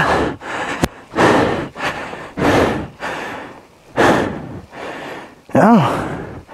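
A person breathing hard close to the microphone, about one breath a second. Near the end comes a short voiced 'ooh'.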